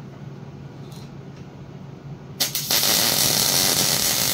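Electric arc welding a tack weld on a steel engine-mount bracket: about halfway in the arc strikes with a brief crackle, then settles into a loud, steady sizzling crackle that carries on past the end.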